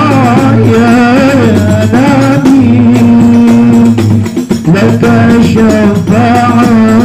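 Sholawat sung in Arabic: a melismatic voice over a microphone, its pitch wavering through the phrases, accompanied by hand-played rebana frame drums. The singing dips briefly about four and a half seconds in.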